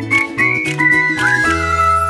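Cartoon end-credits music: a bouncy bass line under a lead melody whose notes slide up into pitch, settling on a held chord about three-quarters of the way through.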